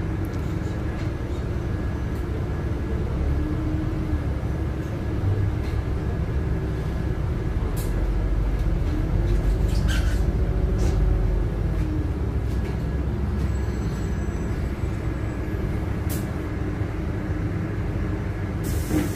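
Inside a LiAZ 5292.71 city bus under way: a steady low rumble of drivetrain and road, with a faint whine that rises and falls as the bus speeds up and slows, getting louder midway. A few cabin rattles and clicks come through, and a broad hiss of air starts near the end.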